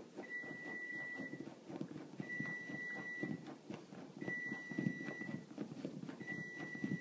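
Golden retriever puppy scratching and nosing at fabric couch cushions, a steady rustling and scraping. Over it an electronic beep sounds four times, about every two seconds, each beep about a second long.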